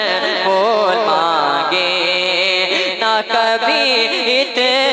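A young man's voice singing a naat, an Urdu devotional poem in praise of the Prophet, into a microphone: long, wavering, melismatic phrases held without clear words, with brief breaths about three seconds in and again near the end.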